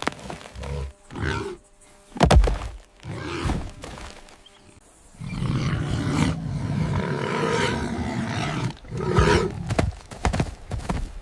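Animal fight sounds: short bursts of growling and grunting, then a long rough roar lasting about four seconds from midway on, with a few more growls near the end.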